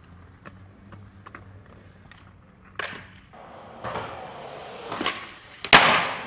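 Skateboard wheels rolling on concrete from about three seconds in, with a loud sharp clack of the board near the end. Before that there are only a few light clicks.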